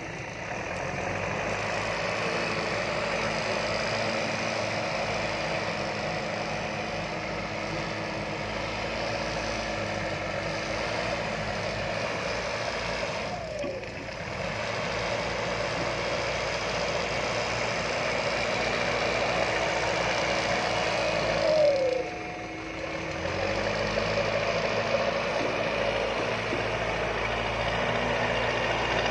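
Diesel engines of earthmoving machines running steadily under working load. Twice the engine note falls and the sound briefly dips.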